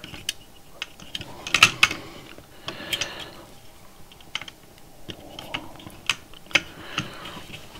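Irregular small clicks and taps of hands working a perforated prototyping board, pushing component leads through its holes and bending them.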